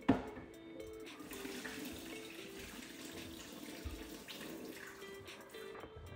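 Kitchen tap running into the sink while soaked chickpeas are rinsed in a pot, with a sharp knock right at the start.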